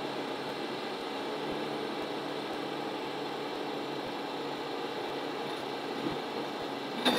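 Ponsse Elephant King forwarder running steadily as it works its loading crane. A single sharp clank rings out near the end.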